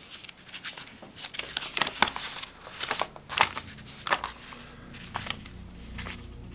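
Rapid, irregular sharp clicks and crackles, with low steady tones coming in during the second half.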